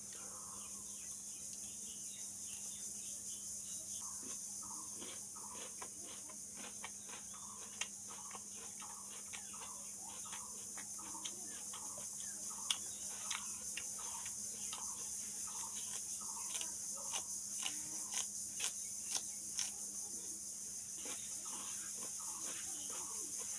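Close-up chewing and crunching of raw onion and okra, with wet mouth sounds recurring every half second or so. A steady high insect drone, like crickets, runs behind it.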